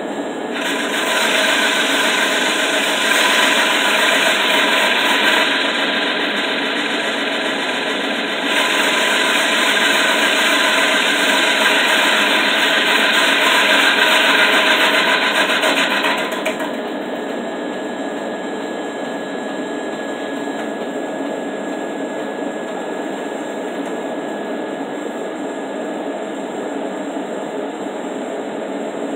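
Large old wood lathe running with its heavy spindle spinning. For the first sixteen seconds or so, a loud rasping hiss of wood being worked against the spinning piece rides on top; it then stops, leaving only the lathe's steady drone.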